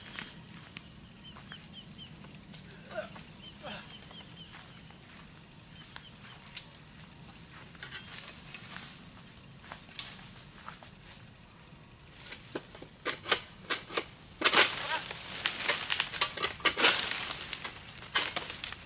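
Steady high drone of insects, and from about two-thirds in a run of sharp cracks and leafy rustling as a long-poled egrek harvesting sickle hacks through an oil palm frond's stalk, loudest about three-quarters in.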